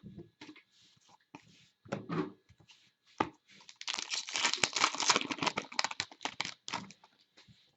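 Wrapper of a trading-card pack being torn open and crinkled: scattered crackles at first, then a dense burst of tearing and crinkling from about halfway through that lasts a few seconds.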